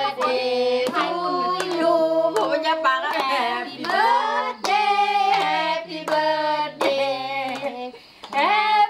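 A small group of women and children singing a birthday song together, with hands clapping along in a steady beat. The singing breaks off briefly near the end, between lines.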